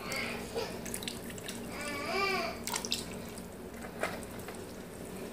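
Red palm oil poured from a bottle into a pot of hot meat stock: a liquid pouring sound, with a couple of sharp knocks.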